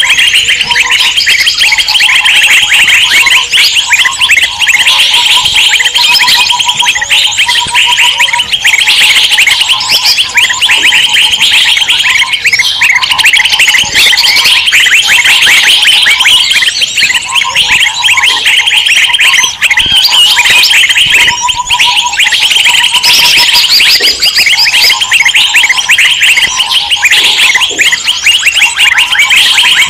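Loud, dense chorus of many small birds chirping and chattering all at once, from a bird-lure recording. A lower, pulsing call comes and goes underneath.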